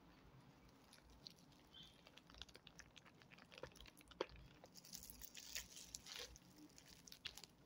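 Faint chewing with scattered soft mouth clicks, then a thin clear plastic bag crinkling as it is handled, about five to six seconds in.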